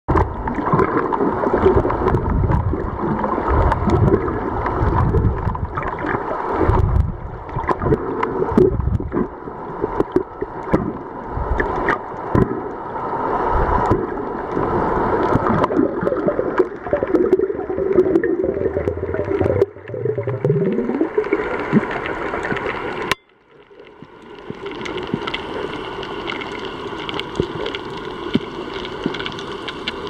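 Underwater noise on a diver's camera: muffled rushing and gurgling water with irregular low thumps. It drops off suddenly about three quarters of the way through, then comes back as a quieter, steadier hiss.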